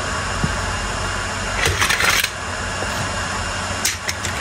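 A steady low drone throughout, with a short scraping hiss about two seconds in and a few light metallic clinks near the end, from hands handling tools and parts during brake work on a car.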